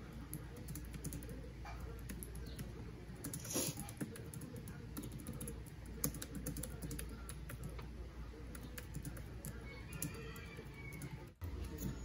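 Fast typing on a compact keyboard with round plastic keys: a quick, uneven run of light key clicks that stops near the end.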